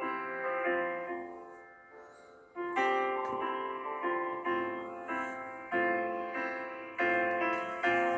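Background music: piano chords struck one after another, each left to ring and fade, in an instrumental stretch of a pop song with no singing.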